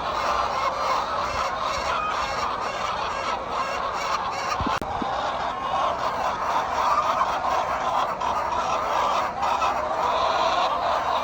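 Large flock of laying hens in a commercial henhouse, many chickens clucking and calling at once in a steady, dense din.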